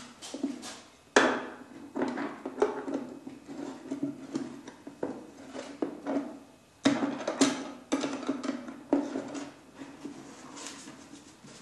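Knocks, clicks and scrapes of a metal fitting and a hand tool against the inside of an old Singer cabinet's wooden box, the hollow box ringing low after each knock. The sharpest knocks come about a second in and again near seven seconds.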